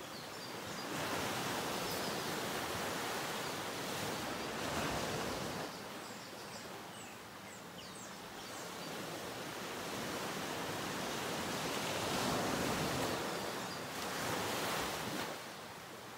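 Small waves washing onto a sandy beach, the surf swelling and falling back in two long surges.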